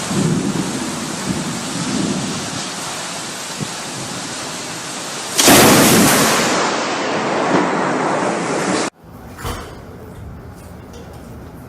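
Thunderstorm: a steady, heavy rush of rain and wind noise, then a sudden loud thunderclap about five and a half seconds in that dies away over about a second. Near the end the sound cuts abruptly to a quieter, steadier rush.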